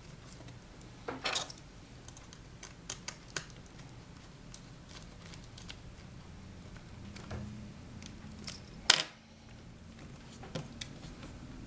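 Scattered small sharp clicks and taps from handling laptop parts and screws during reassembly. There is a short cluster of clicks just after a second in, and the loudest single click comes about nine seconds in.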